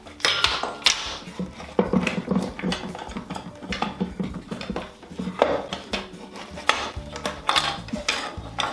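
Repeated clatter and knocks of clamps being undone and lifted off a freshly glued wooden box, with the box and clamps handled on the bench.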